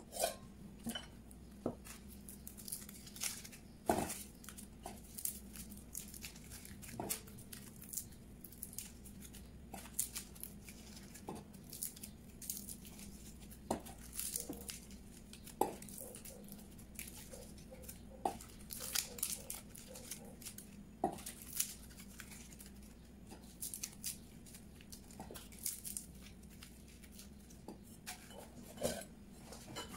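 Dry, papery tomatillo husks being torn and peeled off by hand, with scattered crackling and rustling, and now and then a sharper knock of fruit or a ramekin against a stainless steel bowl.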